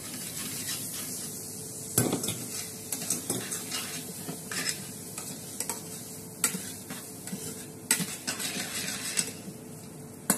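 Metal tongs tossing spaghetti in a pan of sizzling pork, clicking and scraping against the pan over a steady sizzle. The sharpest knocks come about two seconds in and again near eight seconds.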